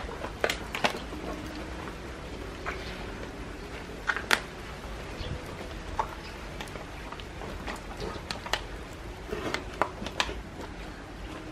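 A cow being dosed by hand with a herbal drink: scattered clicks, knocks and shuffling handling noises, the sharpest about four seconds in, over a steady low rumble.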